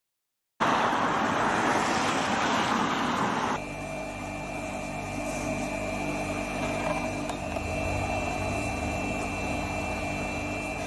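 A loud rushing noise for about three seconds, then a steady mechanical hum with a thin high whine.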